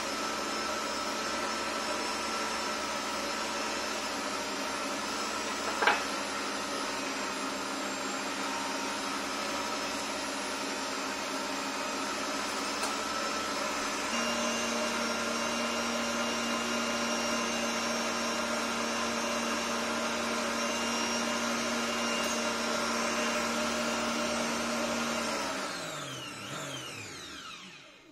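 Kenwood Chef XL stand mixer whisking eggs and sugar at speed in its steel bowl: a steady motor whine, with one sharp tap about six seconds in and a slight rise in level about halfway. Near the end the motor is switched off and winds down to a stop.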